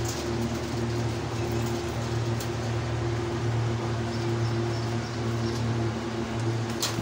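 Steady mechanical hum of a running motor, a low pitched drone with a few faint clicks over it, and a sharper click near the end.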